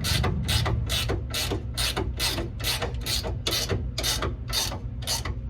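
Hand ratchet wrench clicking through steady back-strokes, about two a second, as a rear shock mounting nut is run down snug by hand; the strokes stop near the end.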